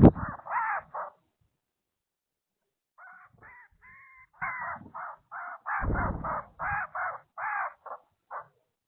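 A bird calling in quick series of short, harsh calls: about four in the first second, a pause of about two seconds, then a longer run of about fifteen. A sharp knock comes right at the start, and a low rumble around six seconds in.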